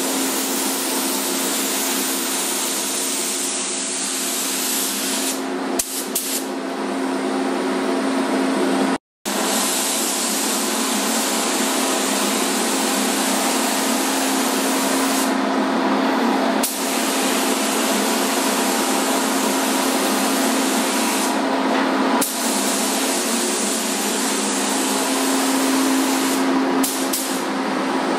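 Air hiss of a gravity-feed spray gun spraying paint, over the steady hum of a paint booth's exhaust fan. The hiss lets up briefly a few times between passes.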